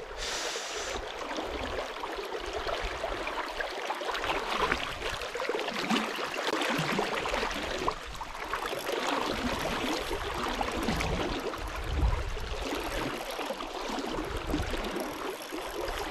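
Fast river current running over a shallow rocky run, a steady hiss of moving water with irregular low rumbles underneath.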